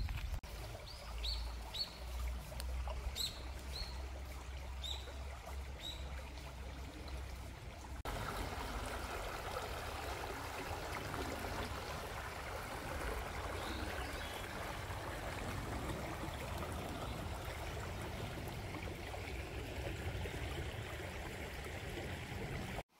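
Small birds chirping with a low rumble underneath, then, about eight seconds in, the steady rush of a clear, shallow river running over a line of rocks.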